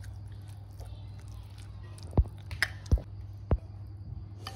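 Metal ladle stirring minced meat and broth in a ceramic bowl, with four sharp knocks about two to three and a half seconds in, over a steady low hum.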